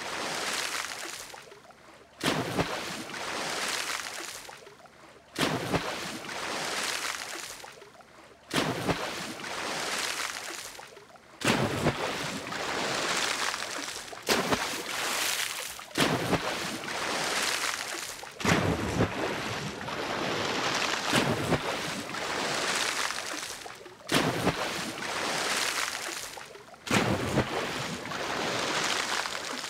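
Ocean surf: waves breaking on a sandy shore, about ten in a row. Each comes as a sudden rush of hissing water that fades away before the next one breaks two to three seconds later.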